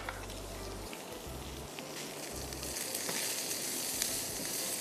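A tempering of sliced onions, garlic, curry leaves and whole red chillies sizzling in hot oil in a wok as it is stirred with a spatula. The sizzle grows louder a little past halfway.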